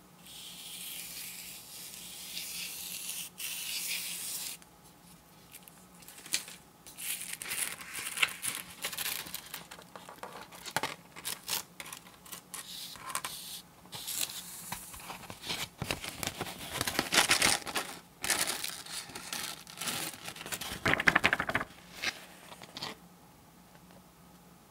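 Paper crackling and rustling in irregular bursts as the white protective backing sheet is peeled off an adhesive sand-art board. It is loudest a little past the middle and stops shortly before the end. It is preceded by a steady hiss during the first four seconds.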